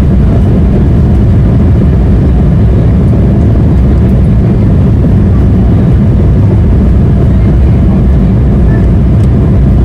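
Embraer 175 jet's GE CF34 turbofan engines at takeoff thrust, heard inside the cabin as a loud, steady roar with a deep rumble during the takeoff run.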